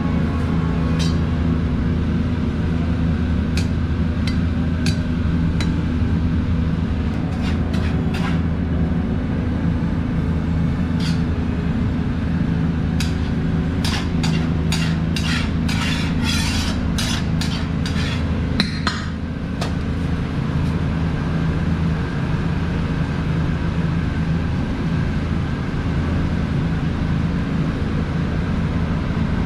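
A metal scoop clinking and scraping against a large steel cooking pot of Bukhari rice as it is mixed, with scattered clicks and a run of quick scrapes about halfway through, over a steady low hum.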